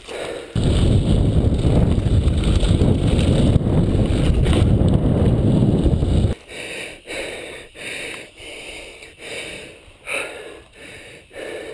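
Mountain bike ride on a dirt trail heard from the rider's camera: loud wind rumble on the microphone for about six seconds, which cuts off abruptly, then quieter tyre noise on dirt and gravel with short bursts of rattling and rustling.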